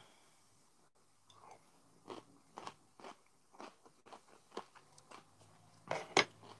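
A man chewing a mouthful of food close to a clip-on microphone: a run of soft, irregular mouth clicks and small crunches.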